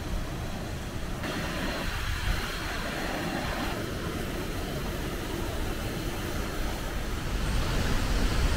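Steam jetting from volcanic sulphur fumaroles, a steady hiss over a low rumble, growing a little louder near the end.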